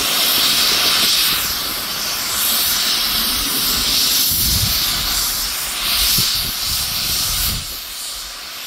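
Chemical vapor venting from a valve on top of a leaking railroad tank car with a loud, steady hiss that swells and eases every couple of seconds. It drops quieter near the end.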